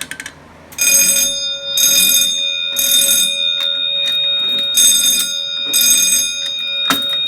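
Wheelock 6-inch fire alarm bell ringing for about six seconds, its tone swelling brighter about once a second, set off by a pull station during a walk test. It starts about a second in and stops near the end.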